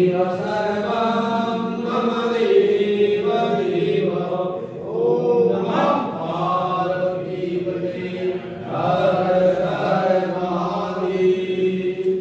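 Hindu devotional mantra chanting by voices: a continuous melodic recitation with long held notes that bend in pitch.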